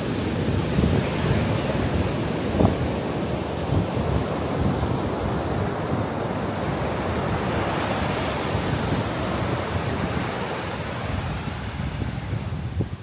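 Ocean surf breaking and washing up a sandy beach, a steady rushing wash that swells in the second half, with wind buffeting the microphone.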